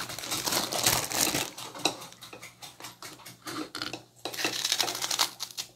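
Kitchen clatter: dishes and metal utensils clinking and knocking in a run of short, irregular sharp sounds.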